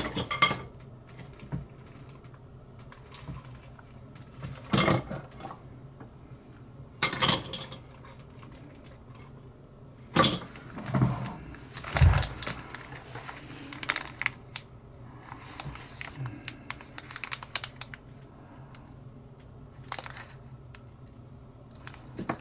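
Small metal parts and tools being handled on a workbench: scattered clicks, clinks and knocks, some sharp and loud, over a low steady hum.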